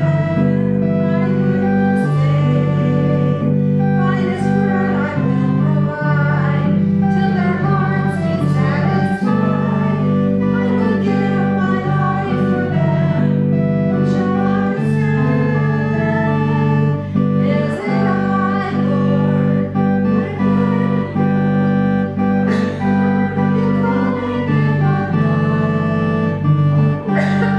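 Church organ playing a hymn in sustained chords that change every few seconds.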